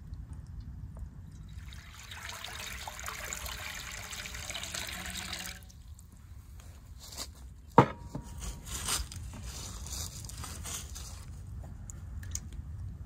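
Water poured from a glass jug into a metal frying pan, a steady pour lasting about four seconds. It is followed by a single sharp knock, the loudest sound, then small splashes and clicks as pieces of raw beef brain are lowered into the water.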